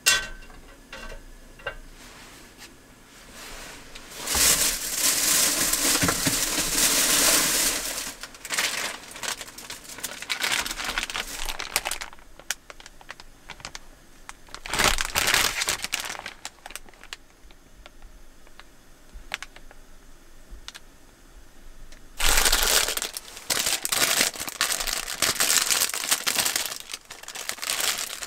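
Plastic food packaging crinkling as it is handled, in bouts: a long stretch about four seconds in, a short one in the middle, and another starting near the end. A sharp click comes right at the start.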